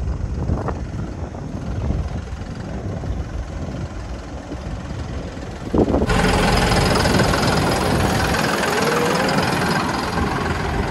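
John Deere 5405 CRDI tractor's diesel engine running, a steady low rumble. About six seconds in the sound abruptly turns louder and brighter, with a faint rising whine a few seconds later.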